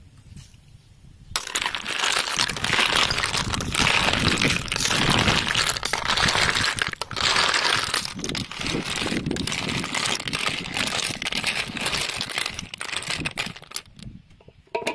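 Snail shells being stirred with a metal spoon in a metal wok, clattering and clinking densely against each other and the pan. The clatter starts about a second and a half in and stops just before the end.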